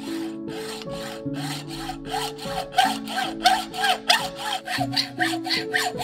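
Hacksaw cutting a mountain-bike fork's aluminium steerer tube through a slotted saw guide, in quick even strokes of about four a second that grow louder about halfway through. Background music with held notes plays underneath.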